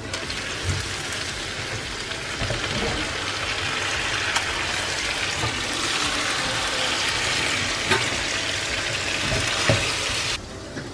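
Vegetables sizzling as they fry in a pan, stirred with a metal spatula, with a few sharp clicks. The sizzling cuts off suddenly near the end.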